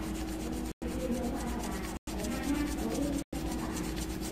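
Colored pencil rubbing back and forth on paper in quick shading strokes, with a faint voice in the background. The sound cuts out completely for a split second about every second and a quarter.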